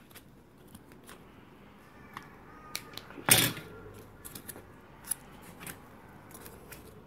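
Hands handling a small cardboard piece with short plastic straw segments taped to it: scattered light clicks and rustles, with one louder sharp knock a little past the middle.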